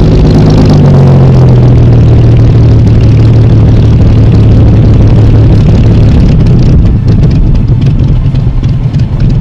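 Messerschmitt Bf 109 G-6's inverted-V12 Daimler-Benz DB 605 engine running loud as the fighter taxis, a steady low drone whose pitch drops slightly in the first second.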